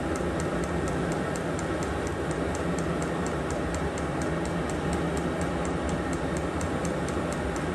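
HCALORY diesel air heater running at its maximum level: a steady rush of fan and burner noise, with the fuel dosing pump ticking evenly several times a second.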